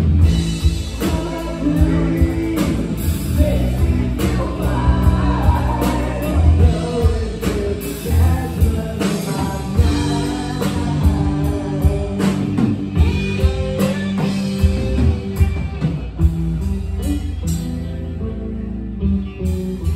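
Live rock band playing: electric guitar, electric bass and drum kit with a steady beat, with singing at the microphone.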